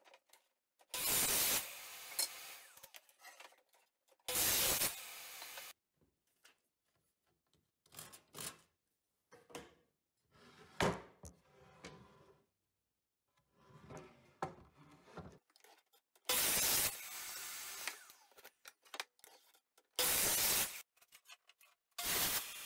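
Sliding compound miter saw cutting pine boards to length, about five short, loud cuts of roughly a second each. Between the cuts come knocks and scraping as the wood is handled.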